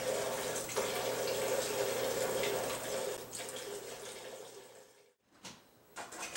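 A steady stream of liquid pouring and splashing, which weakens after about three and a half seconds and trails off before stopping abruptly about five seconds in.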